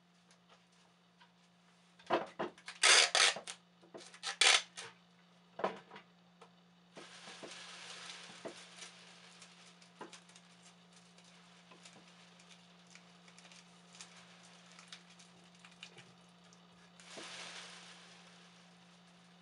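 Dishes and cutlery clinking: a run of sharp clinks and knocks over a few seconds, then a longer soft hiss, and a shorter hiss near the end. A steady low hum runs underneath.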